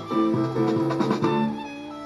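Instrumental music: fiddle and guitar playing a melody with shifting sustained notes.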